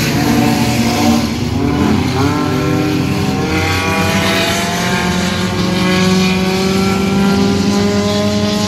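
Engines of several stock cars racing round a dirt oval, overlapping, revving with a rising pitch as they accelerate out of the turns.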